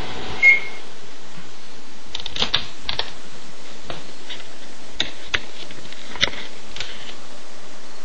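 Microwave oven stops running, its hum cutting off, and gives one short high beep about half a second in. Scattered sharp clicks and light knocks follow.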